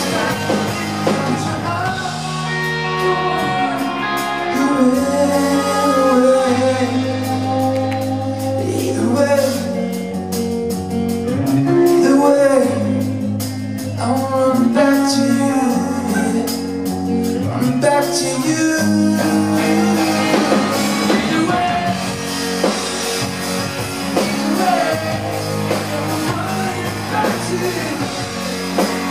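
Live rock band playing, with electric guitars, a drum kit and a male lead vocal singing.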